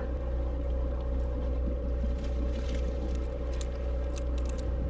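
A sportfishing boat's engine running steadily: a constant low drone with a steady mid-pitched tone over it, and a few light clicks in the second half.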